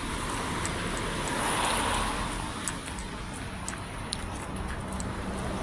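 Outdoor street ambience heard while walking: a steady rushing noise that swells briefly about a second and a half in, with faint light ticks scattered through it.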